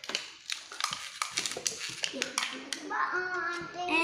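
Crinkling and clicking of toy packaging being handled, a quick string of short rustles and taps. About two seconds in, a young child's drawn-out wordless vocalizing starts and runs over the handling.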